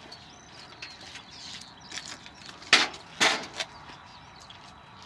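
Light clatter, then two loud sharp knocks about half a second apart a little past the middle, with a weaker third knock just after.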